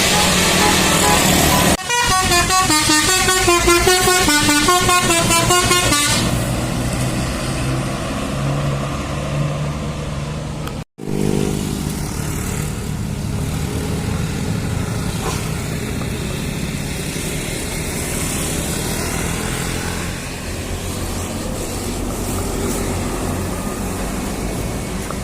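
A bus's Basuri telolet multi-tone horn plays a warbling melody for about four seconds, starting about two seconds in. Engine and road noise from heavy traffic follow, with a brief dropout near the middle.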